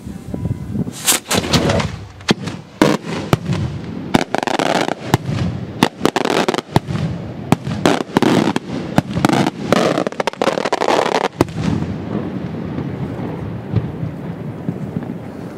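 Maltese beraq aerial shells bursting in rapid succession: a dense run of sharp, loud bangs with echoing rumble between them. The bangs stop near the end and only a lower rumble is left.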